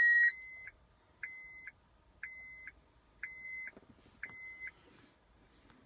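Honda CR-V's dashboard warning chime sounding on switching the ignition back on: a long high tone that breaks off right at the start, then five short beeps at the same pitch about a second apart.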